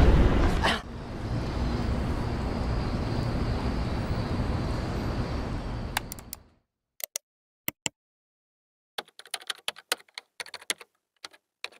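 Steady background noise that cuts off suddenly about six and a half seconds in, followed by scattered sharp clicks, singly and in short irregular runs.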